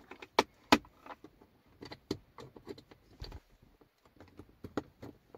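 Small plastic clicks and knocks of a USB star-light projector being plugged into a car's USB Type-A port and handled in the centre console: irregular taps, with two sharper clicks within the first second.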